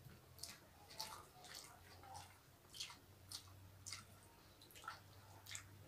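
Faint eating sounds: scattered soft, wet clicks and smacks of chewing and of fingers mixing rice and curry on a plate, over a low steady hum.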